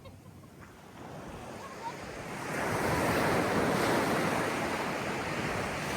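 Surf: a wave building up and washing in, a rushing noise that swells about two and a half seconds in and stays loud.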